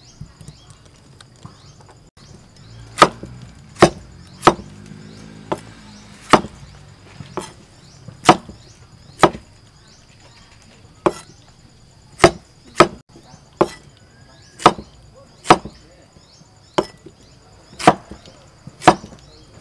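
A steel cleaver chopping peeled vegetables on a wooden chopping board: sharp single chops, roughly one a second, beginning a few seconds in and going on with short pauses.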